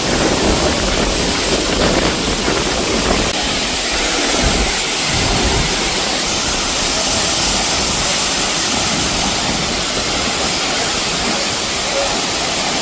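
Waterfall close by: a loud, steady rush of falling water splashing down.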